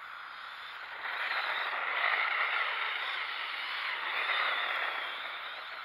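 Arrma Typhon 4S radio-controlled car driving on snow: electric motor and tyres on the snow, swelling about a second in, peaking twice and fading near the end.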